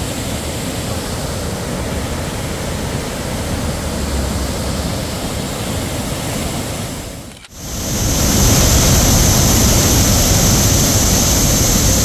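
Borhill Falls, a tiered waterfall in heavy flow: a loud, steady rush of falling and churning water. About seven and a half seconds in it dips briefly at a cut, then returns louder and brighter with a close view of the falls.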